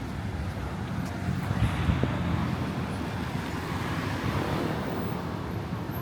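Street traffic going by, with one vehicle passing that swells up a couple of seconds in and fades near the end.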